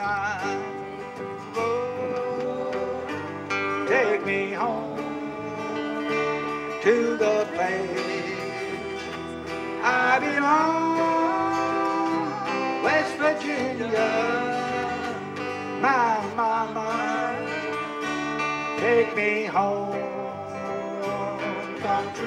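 Live band playing a song: a woman singing over strummed acoustic guitars, with bass guitar and electric guitar.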